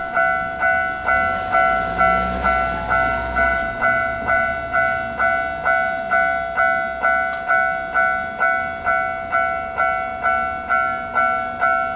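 Japanese railway level-crossing alarm ringing its repeated electronic bell, just over two strikes a second, each strike ringing out briefly before the next. A low rumble sits under it for the first few seconds.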